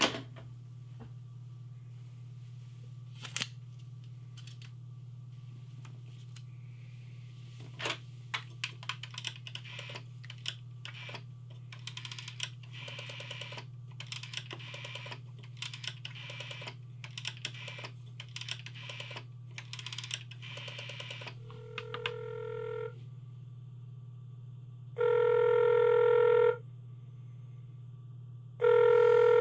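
Rotary telephone: the handset is lifted with a click, then the dial is wound and let run back again and again, a long run of clicking through the middle, over a steady low hum. Near the end a ringback tone sounds in the earpiece: three pitched tones a few seconds apart, the call ringing through.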